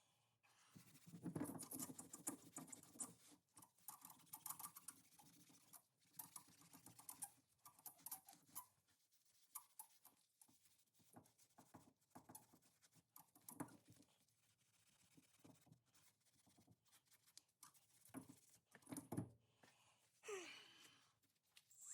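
Faint, irregular scraping and tapping of hand-cleaning rust off wheel-hub parts.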